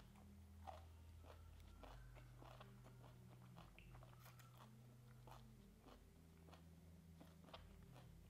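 Faint close-up chewing of a mouthful of banana flower and raw beef salad: soft, irregular wet mouth clicks and small crunches, with a slightly sharper click about a second in, over a low steady hum.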